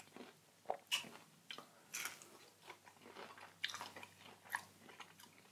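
A person chewing and biting food close to the microphone: quiet, irregular crunchy bites and mouth sounds, with no speech.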